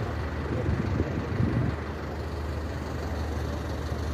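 An engine running steadily with a low hum, with a few louder low rumbles about a second in.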